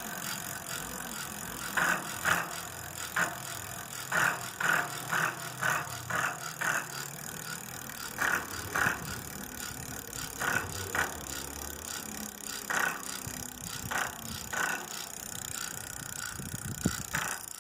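Rear freewheel ratchet of a 29-inch-wheel bicycle clicking in short bursts, some in quick runs about half a second apart with pauses between, over a steady hiss.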